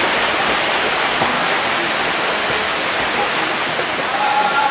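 Steady, even rushing hiss of water noise with no breaks.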